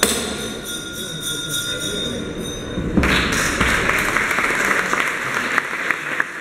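A church crowd's background noise, then applause breaking out about halfway through and carrying on as dense clapping.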